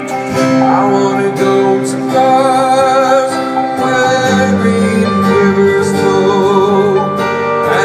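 Live band music over a festival PA, heard from the crowd: sustained keyboard chords with guitar and a wavering held vocal line, the bass filling in about four seconds in.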